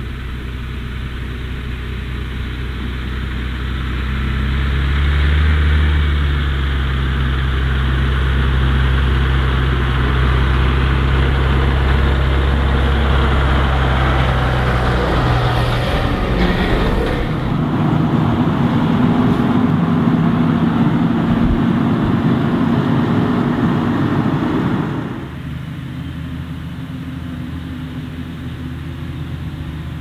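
Farm tractor pulling a loaded silage trailer, its engine running steadily and growing louder as it approaches. It passes close by with a rush of tyre and trailer noise. About 25 seconds in, the sound drops suddenly to a quieter, more distant tractor engine.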